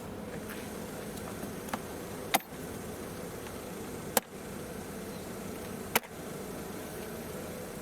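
Three sharp plastic snaps about two seconds apart as the three clips holding the pollen filter cover on a Mercedes W203 C-Class are released, over a steady background hum.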